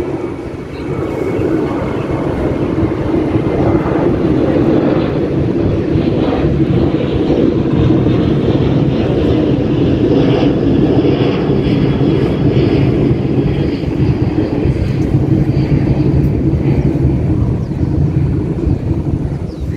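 A large engine running with a steady, loud low drone that rises about a second in and holds.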